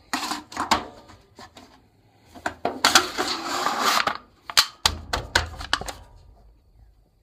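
Empty beer cans clattering and scraping as they are pushed into a carport channel: a run of sharp knocks, a longer scraping stretch about three seconds in, then more knocks that die away near the end.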